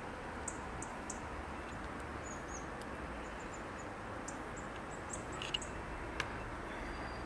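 Background ambience with faint, short, high bird chirps scattered throughout, over a steady hiss. Two sharp clicks come near the end.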